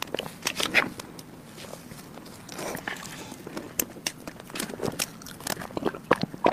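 Close-miked mouth sounds of a person eating soft chocolate mousse cake: irregular wet smacks, clicks and chewing, with the spoon licked clean, and a drink taken from a glass near the end.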